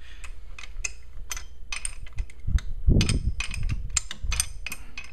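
Irregular sharp metallic clicks and taps of hand tools working on the engine's bottom end, with a louder low rumbling thump about three seconds in.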